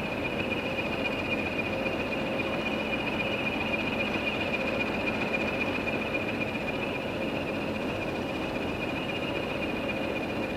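Diesel locomotives idling at a standstill: a steady engine hum with a continuous high whine over it.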